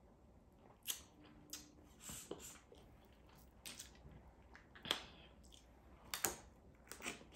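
Faint eating sounds: quiet chewing with a scattered handful of short mouth clicks and smacks.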